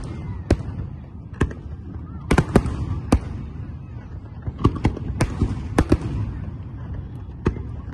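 Aerial fireworks shells bursting overhead: about a dozen sharp bangs at uneven intervals, some in quick clusters, over a continuous low rumble.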